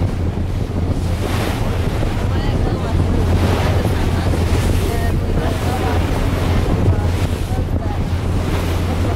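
Wind buffeting the microphone over the wash of choppy open water, with a steady low hum underneath.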